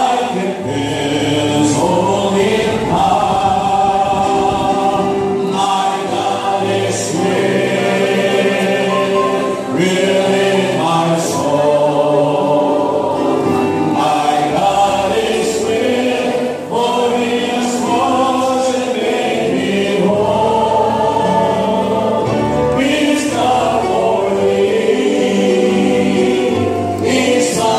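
A large group singing a Christian hymn together, accompanied by an electronic keyboard.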